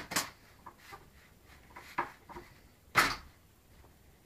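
Mail coming through a door's letter slot: envelopes scraping and rustling through the slot and being batted by cats, heard as a handful of short rustles and clacks, the loudest about three seconds in.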